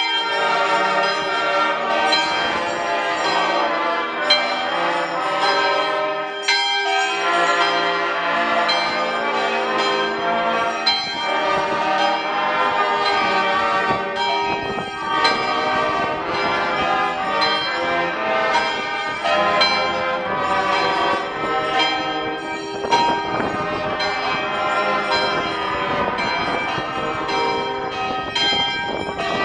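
Church bells ringing in a continuous peal, many strikes overlapping.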